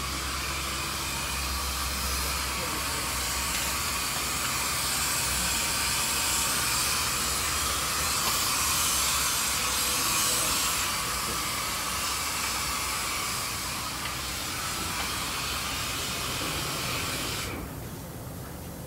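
Oxy-acetylene cutting torch hissing steadily as it cuts through a rusted, seized bolt on a truck bed cross member. The hiss drops away suddenly near the end.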